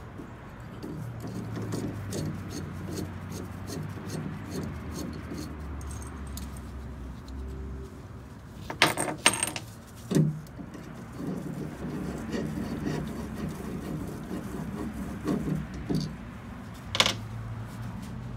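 Small metal parts and a hand tool clinking and rattling against a steel steering-column drop bracket as it is fitted and fastened by hand. Under a low rumble of handling there are a few sharp clinks: two close together about nine seconds in, one at about ten seconds, and more near the end.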